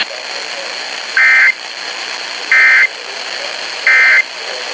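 Emergency Alert System end-of-message code sent over weather radio: three short bursts of two-tone digital screech, about a second and a half apart, over steady radio hiss. These bursts mark the end of the severe thunderstorm warning broadcast.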